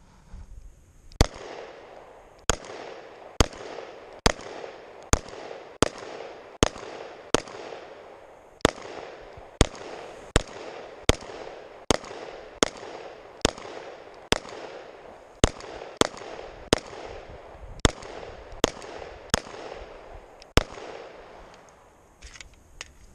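Glock 19 9 mm pistol fired in single shots, a little more than one a second, about two dozen in a row, until the magazine runs dry and the slide locks back.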